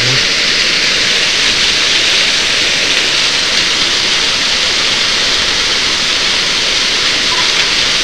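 Small waterfall falling in two streams onto rock and into a plunge pool: a steady, even rush of water.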